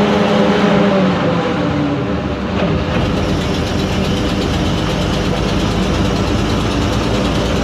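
Amphibious duck boat's engine running as it drives, its note changing about three seconds in to a deeper, rougher rumble.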